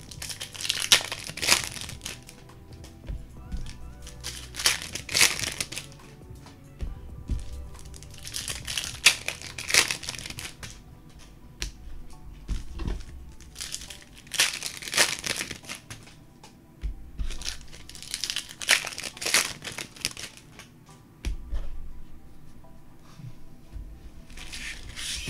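Plastic trading-card pack wrappers crinkling and tearing as packs are opened, in short bursts every few seconds, over soft background music.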